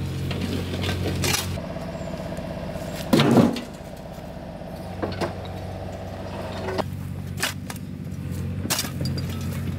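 A site machine's engine running steadily at idle, with sharp knocks of a mattock chopping into stony soil and a loud clatter of rubble stones dropped into a dumper's skip about three seconds in.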